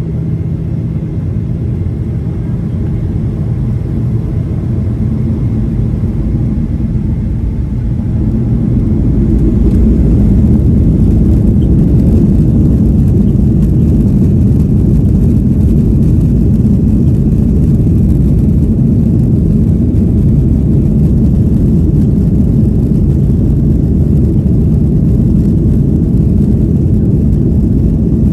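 Boeing 737-800's CFM56 jet engines and airframe rumble heard from inside the cabin during takeoff. It is a steady low roar that grows louder about eight to ten seconds in and then holds.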